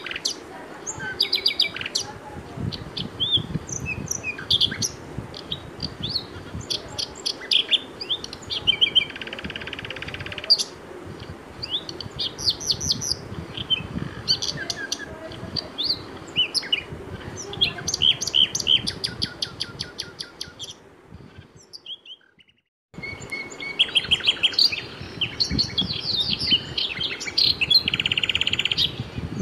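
Many small birds chirping and twittering over a low background noise, with a few longer buzzing trills. The sound fades out about two-thirds of the way through, stops for about a second, and starts up again.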